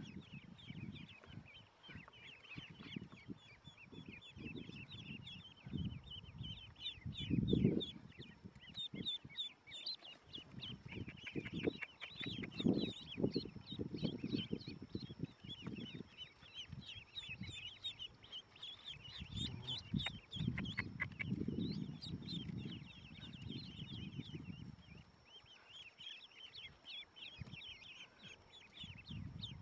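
A crowd of newly hatched ducklings peeping: many short, high calls overlapping throughout. Between them come bursts of low rustling and bumping, loudest about seven and twelve seconds in.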